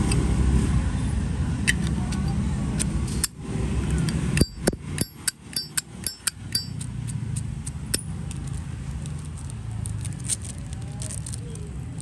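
Zippo lighter's metal lid being flipped open and snapped shut over and over: a quick run of ringing metal clinks in the middle, with a few single clinks before and after. A steady low rumble runs underneath.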